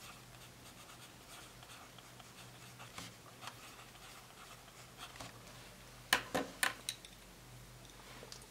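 Pen writing on paper: faint scratching strokes as two words are lettered, then a few sharper, louder clicks and knocks about six seconds in.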